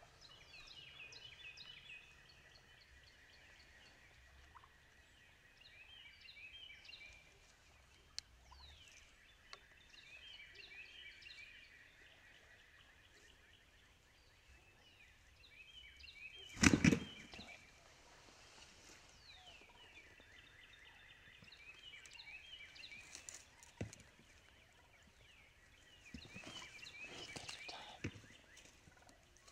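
Wild turkeys calling in a field: a short rattling gobble repeated about six times, roughly every five seconds. About halfway through comes one loud, sudden sound.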